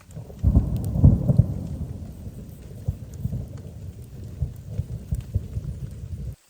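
Rolling thunder, loudest with sharp cracks about half a second to a second and a half in, then rumbling on unevenly before cutting off suddenly near the end, with rain pattering faintly beneath.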